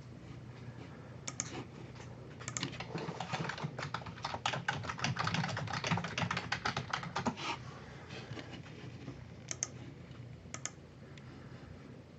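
Typing on a computer keyboard: a quick run of key clicks lasting about six seconds, then a few scattered keystrokes.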